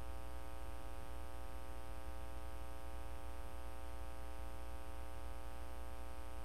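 Steady electrical hum with a faint hiss, unchanging throughout: mains hum on the recording.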